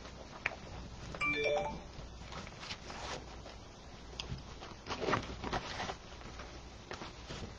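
Ribbon rustling and crinkling as it is looped around the pegs of a bow-making board, with a short electronic chime of a few quick notes about a second in.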